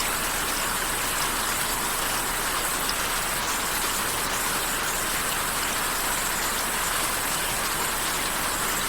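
Steady rain falling, a continuous even hiss with scattered drops.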